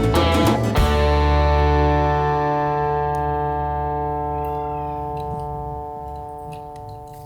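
Background music with guitar: a busy passage that ends about a second in on a held chord, which slowly fades out.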